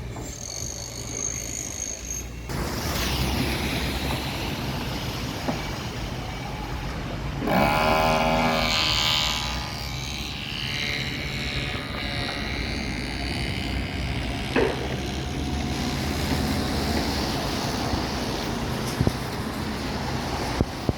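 Steady low engine rumble of motor vehicles, with a louder engine passing through from about seven to ten seconds in.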